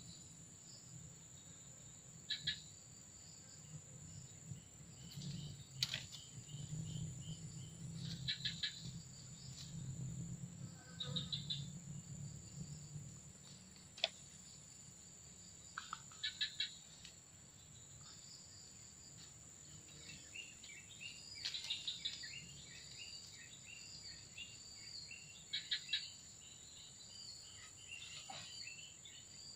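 Steady high-pitched insect drone with birds calling in repeated bursts of quick chirps, and a couple of sharp clicks.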